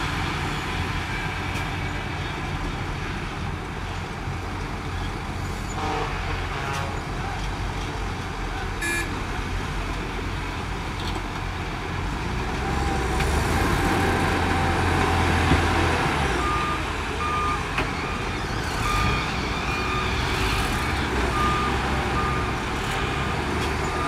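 Diesel engines of a Shantui DH17 crawler bulldozer and a loaded dump truck running under load, louder about halfway through. From about two-thirds in, a vehicle's reversing alarm beeps steadily.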